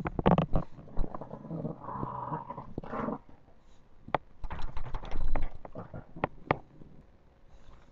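Boxer pups play-fighting: short dog vocalisations and scuffling on bedding in irregular bursts, with sharp clicks, loudest a little past the middle.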